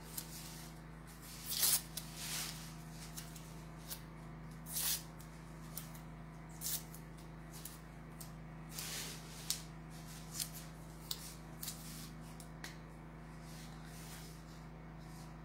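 Short, soft rustles of lace trim and cloth being handled, about a dozen scattered brushes, over a faint steady hum.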